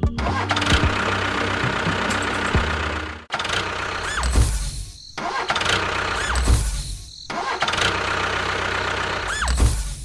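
Vehicle engine sound, chopped by abrupt cuts into three similar repeating sections.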